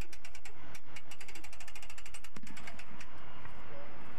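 Hand-cranked boat trailer winch being turned, its pawl clicking rapidly over the ratchet gear; the clicking stops with one sharper click about two and a half seconds in.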